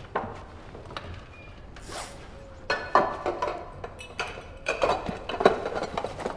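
Metal clinks and clothing rustle as a church chalice is grabbed and pushed inside a jacket. Scattered clicks at first, then a dense run of clinks and knocks from about three seconds in.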